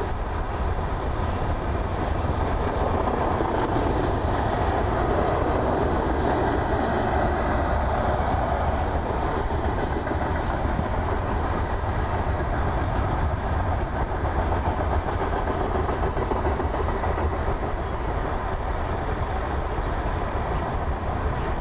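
Montana Rail Link freight train rolling past steadily.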